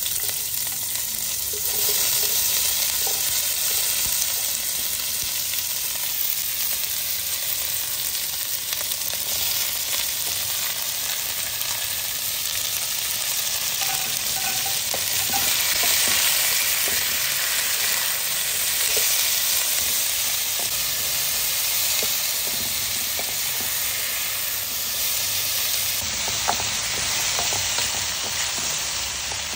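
Chopped onion, bell peppers, pineapple and tomato sizzling steadily in hot oil in a wok as they are stir-fried, with a spatula now and then ticking and scraping against the wok.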